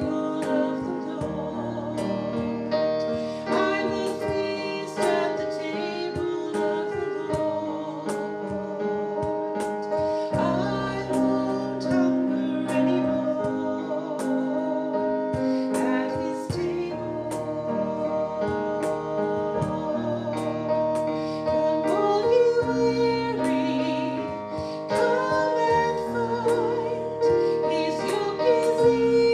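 Worship song: a woman singing with piano accompaniment.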